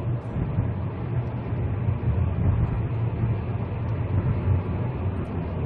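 2004 SsangYong Chairman's engine and road noise heard inside the cabin as the car accelerates at highway speed, a steady low rumble.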